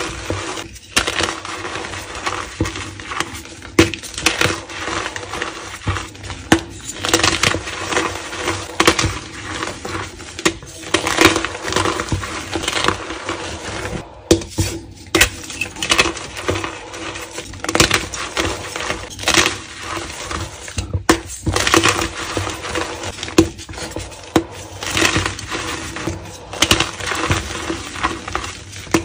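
Blocks of dyed gym chalk crushed and crumbled by hand: a dense, irregular run of crisp, crunchy cracks and crackles as the blocks break and grind into powder, with a few short pauses between handfuls.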